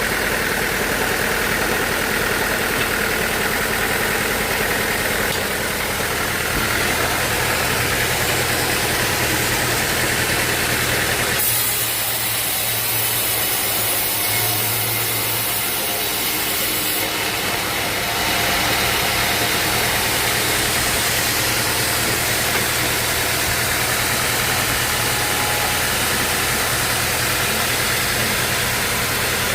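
Sawmill engine running steadily. About halfway through, a high hiss comes in for several seconds while the lower sound dips.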